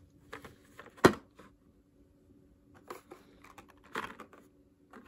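Hot Wheels cars in plastic blister packs on cardboard cards being handled and set down on a table: a few scattered light clicks and crinkles of plastic and card, with the sharpest click about a second in and another rustle near four seconds.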